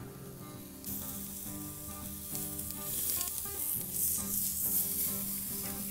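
Eye of round beef roast sizzling as it sears over hot charcoal on a kettle grill grate. The sizzle grows louder about a second in as the roast is turned with tongs.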